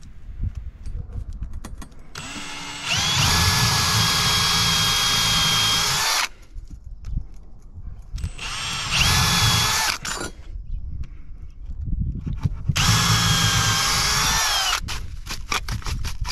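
Milwaukee FUEL cordless drill boring lug-bolt holes through a solar tile hook's base plate into the wooden roof deck and rafter, in three runs: a long one of about four seconds, then two shorter ones. Each run starts with a rising whine as the motor spins up.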